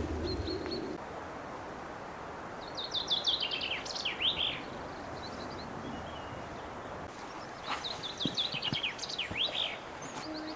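A small songbird singing two short phrases of rapid high notes ending in quick downward sweeps, about five seconds apart, over a steady background hiss.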